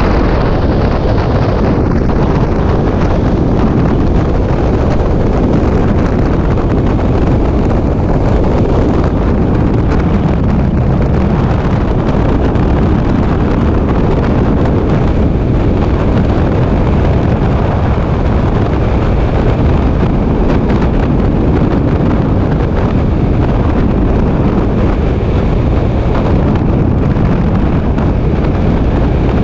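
Freefall wind rushing over a helmet-mounted camera's microphone during a skydive: a loud, steady rush of wind noise throughout.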